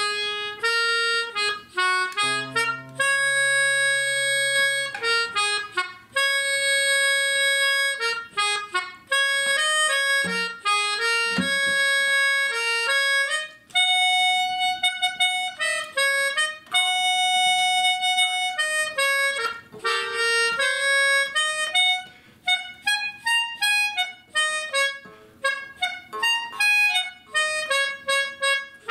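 Melodica playing a lively, wandering melody: quick runs of short notes broken by a few long held notes.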